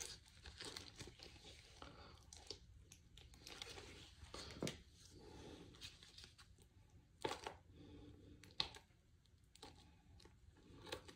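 Faint rustling and crinkling of trading cards and a foil card-pack wrapper being handled, with a few sharper ticks and taps scattered through.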